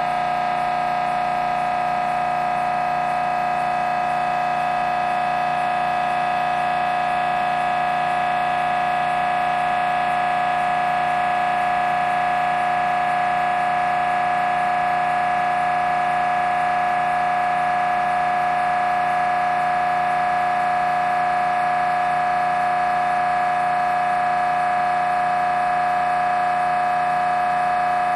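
Siemens Symphony Maestro Class 1.5 T MRI scanner's gradient coils giving a loud, steady buzzing tone during a scan sequence, one unchanging pitch with a rich ring of overtones.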